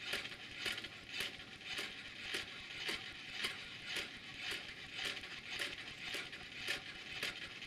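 A person's palm clapping against a Baxter robot's rigid hand in an even, steady rhythm, a little under two claps a second, over a faint steady hum.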